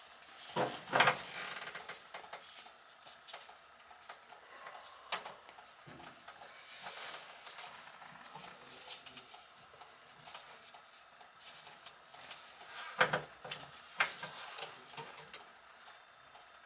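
Scattered light clicks and knocks of hands and tools working on an old laundry tub faucet, with small clusters about a second in and again near the end, over a faint hiss.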